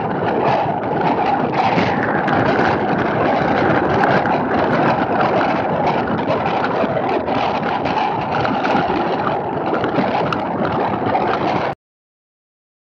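Storm wind buffeting the camera's microphone, with rain pelting it in many small taps; the sound cuts off suddenly near the end.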